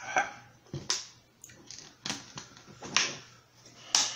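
Plastic water bottle being handled and set down on a table, then a metal fork clicking against a plate: a string of about eight separate sharp clicks and crackles, one with a dull knock about a second in.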